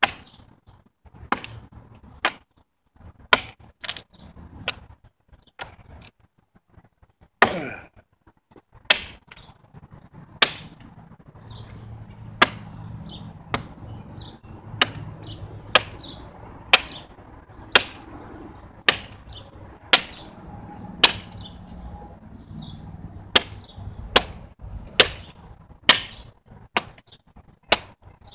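Chopping blows of a blade into a wooden pole, cutting a line of angled notches: sharp cracks at about one a second, each with a brief ringing tail.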